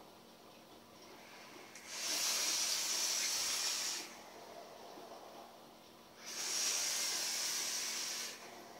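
Two long hisses from drawing on a home-made sub-ohm box mod vape, each about two seconds, the first about two seconds in and the second about six seconds in.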